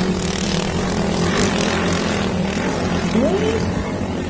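Racing motorized banca boat engines running steadily at speed, with a brief rising whine about three seconds in.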